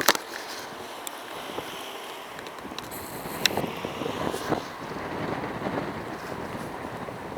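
Wind buffeting the microphone: a steady rushing noise, with a few light handling knocks.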